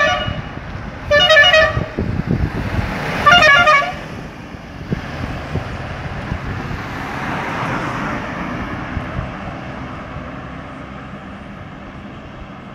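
A vehicle horn tooting three short blasts in the first four seconds, then a road vehicle passing, its engine and tyre noise swelling and fading.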